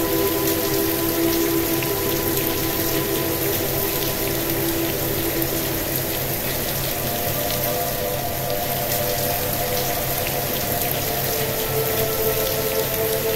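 Steady rain falling, mixed with soft droning relaxation music of long held tones. The notes shift about halfway through and again near the end.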